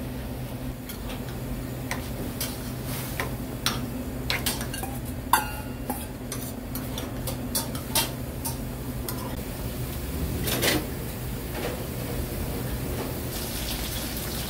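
Kitchen clatter: dishes, pots and utensils knocking and clinking at irregular intervals, a few strikes ringing briefly, over a steady low hum.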